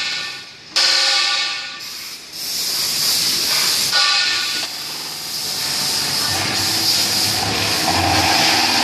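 Automatic pipe-cutting machine running in automatic mode: a loud hissing, whining metal-cutting noise that breaks off briefly near the start and again about two seconds in, then starts again abruptly.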